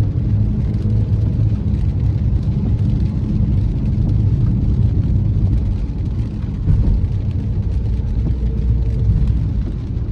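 Car driving along at a steady pace: a constant low rumble of road and engine noise.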